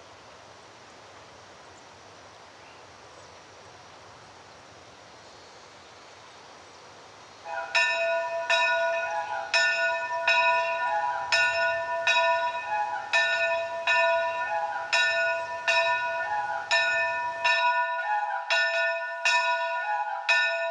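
Faint steady background hiss for the first several seconds, then church bells start ringing about seven seconds in. Several bells of different pitches strike in a repeating pattern, about two to three strokes a second, each stroke ringing on.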